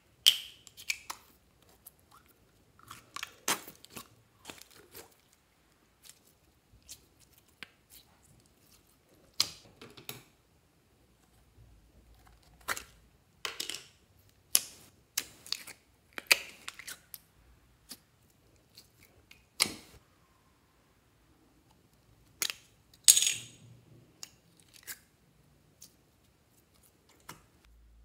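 Small plastic slime tubs and jars being handled, opened and emptied over a plastic basin: irregular short clicks, taps and crackly rustles every second or two.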